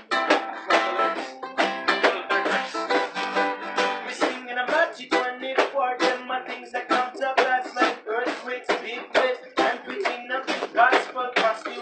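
Ukulele and two acoustic guitars strummed together in a steady rhythm.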